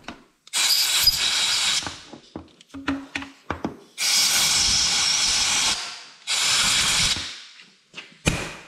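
Compressed-air blow gun hissing in three blasts, the first two over a second long and the third shorter, blowing debris out of threaded bolt holes. A few light knocks come between the blasts, and a short knock near the end.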